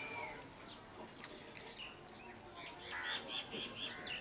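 Wild birds calling, with a quick run of about six repeated chirps about three seconds in, the loudest part; faint clicks of eating by hand from a steel plate sound between the calls.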